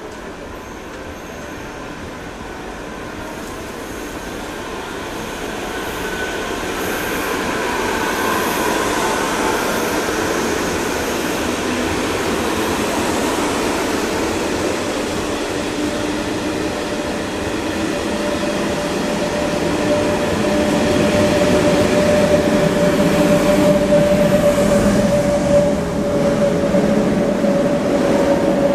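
SJ X2000 electric train accelerating away past the platform: wheels running on the rails under the whine of its traction inverters, growing louder as it gathers speed. The loudest part, with a steady humming whine, comes near the end as the rear of the train goes by.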